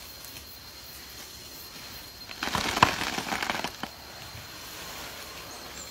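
A wild elephant pushing against a coconut palm: a burst of rustling with a few sharp cracks about halfway through, over a steady low hiss.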